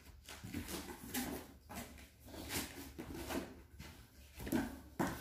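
Handling noise from an air fryer's cardboard box and packaging: scattered knocks and rustles, several over a few seconds.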